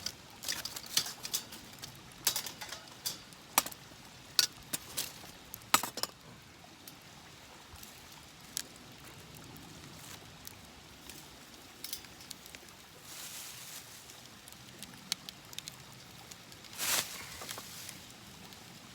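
Cooking gear being handled at a camp grill as meat goes on: a quick run of sharp clicks and taps for the first several seconds, then a quieter hiss, with a short louder burst of hiss about three-quarters of the way through.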